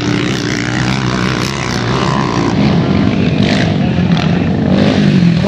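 Racing quad (ATV) engines running hard on a dirt motocross track, their pitch rising and falling as the riders work the throttle.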